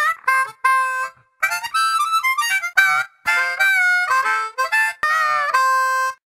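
Solo harmonica tune: short phrases of chords and single notes, some of them bent, stopping about six seconds in.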